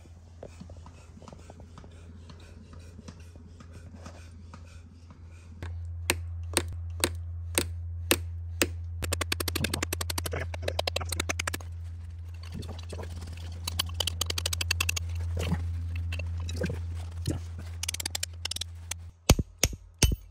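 A climbing hammer strikes an old forged iron spike jammed in a rock crack as a piton, to loosen it. Single blows land about twice a second, then come fast runs of lighter taps, and two loud blows near the end. A steady low hum runs under the strikes.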